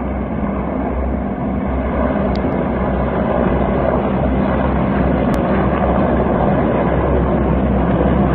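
Group of military helicopters flying past overhead: the steady rotor and engine drone of many aircraft together, growing a little louder as they pass.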